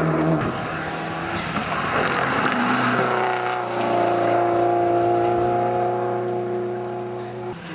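Subaru Impreza race car's flat-four engine passing on a circuit. The engine note drops suddenly about half a second in, then comes back as a steady pull under power and fades as the car drives away.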